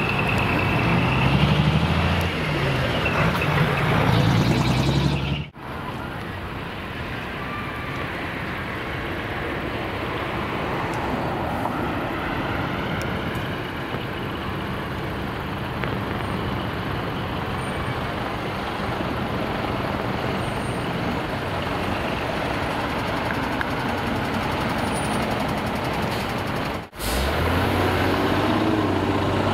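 Heavy truck diesel engines running as trucks drive off: a loud engine rising and falling in pitch for the first few seconds, then after a sudden cut a quieter, even rumble, and near the end another truck engine close by.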